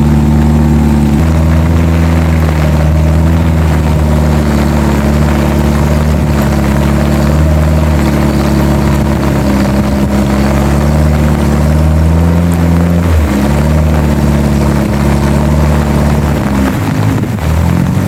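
Suzuki off-road 4x4's engine running steadily at low revs, its pitch shifting a few times as the throttle changes.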